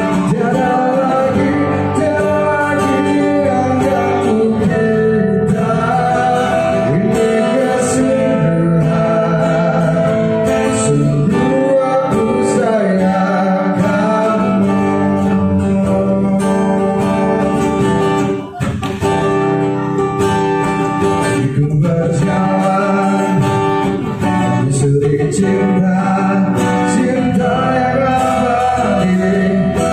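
A man singing a song into a microphone, accompanied by an acoustic guitar.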